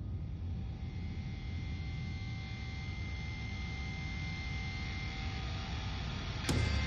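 Cinematic sound-design drone under the end titles: a steady low rumble with a few thin held tones above it, ending in a sudden hit with a deep boom near the end.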